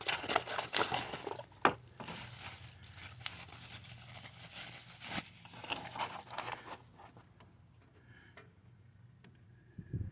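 Plastic packaging around a new purge solenoid valve crinkling and rustling as it is handled, with sharp small clicks and knocks; the handling dies down about seven seconds in.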